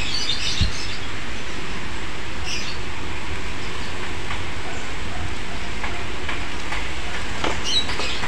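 Steady rushing background noise with a low rumble, a brief low thump just over half a second in, and a few short, faint high chirps.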